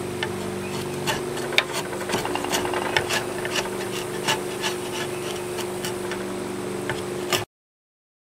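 Drawknife shaving wood from an axe handle clamped in a vise: a dozen or so short, irregular scraping strokes with sharp snaps as shavings come off, over a steady low hum.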